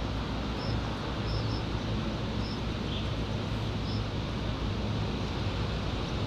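Steady outdoor street ambience: a low rumble of distant traffic, with a few short, faint high chirps scattered through it.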